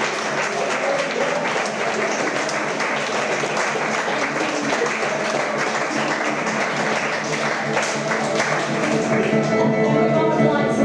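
A roomful of guests applauding while music plays. The clapping thins out near the end and the music's steady notes come through more clearly.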